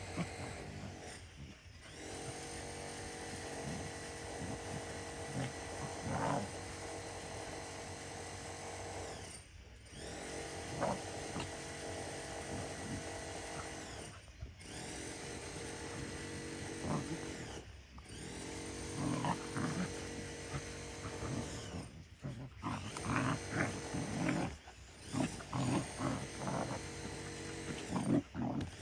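Two Belgian shepherd mix dogs play-fighting, giving short bursts of throaty growls, more often in the second half. A steady motor-like hum runs underneath and drops out briefly several times.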